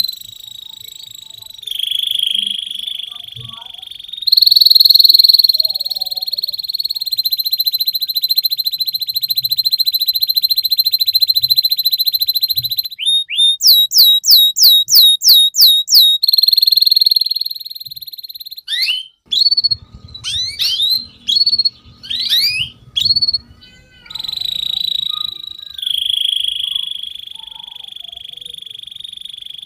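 Domestic canary in full song: long, fast trills held on one pitch, broken about halfway by a run of about nine loud upward-sweeping notes, then a burst of quick rising and falling whistles before the trills return.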